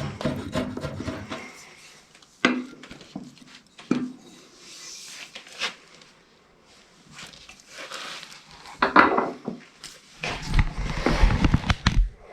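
Irregular knocking and clattering of wooden pieces and hand tools being handled on a workbench, with a run of heavier, deeper knocks near the end.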